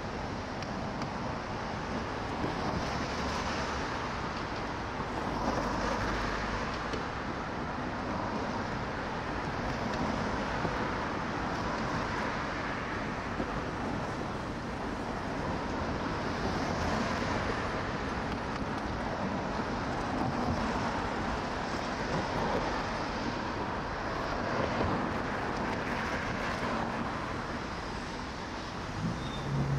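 City street traffic: cars passing one after another, a steady wash of tyre and engine noise that swells every few seconds as each one goes by.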